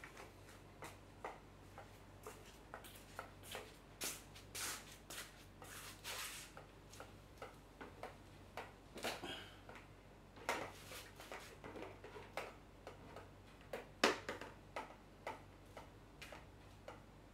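Scattered, irregular light taps and clicks of someone moving about in flip-flops and handling a plastic bucket and a folding stool, with a sharper knock about 14 seconds in. A faint steady low hum runs underneath.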